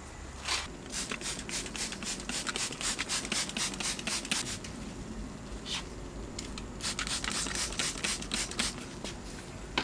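Hand trigger spray bottle spritzing interior cleaner onto a leather car seat in rapid squirts, about four to five a second. There are two runs, with a single squirt in the pause between them.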